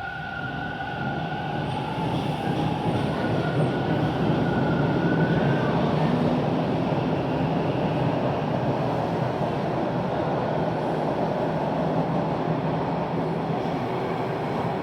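A TTC rail train running on the track, with an even wheel-and-track rumble that builds over the first two seconds and then holds steady. Two high steady whines sound over it at the start and fade out within about five seconds.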